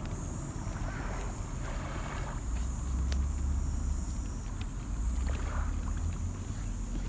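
Wind buffeting an outdoor microphone in uneven low gusts, over a steady high-pitched hiss.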